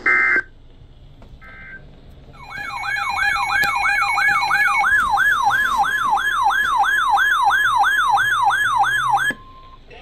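Weather radios receiving an EAS alert on NOAA Weather Radio: short data bursts of the SAME header, then several radios sounding their warbling alert sirens together, about three sweeps a second with steady tones under them. The sirens cut off about nine seconds in, leaving a steady alert tone. The alert signals a new severe thunderstorm warning.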